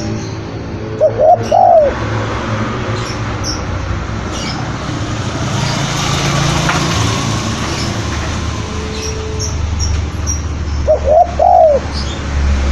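Male spotted dove cooing: two short phrases of several rising-and-falling coo notes, the first about a second in and the second near the end. Faint high chirps of small birds and a steady low hum run underneath.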